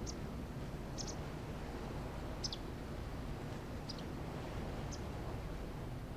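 A small bird giving short, high chirps about once a second, one of them falling in pitch, over a steady low rumbling background.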